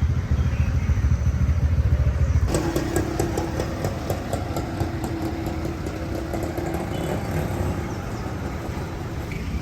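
A motor vehicle engine, of the motorbike kind, running on a street. A deep rumble stops abruptly about two and a half seconds in and gives way to a steady mid-pitched hum with faint ticking.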